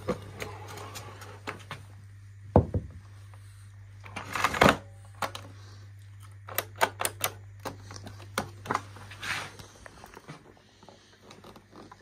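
Plastic clicks and knocks from a Hoover Whirlwind cylinder vacuum cleaner being handled, switched off, with its body and power lead knocked about. A heavy thump about two and a half seconds in, a short rustling scrape a couple of seconds later, and a run of quick clicks after that, over a steady low hum that fades near the end.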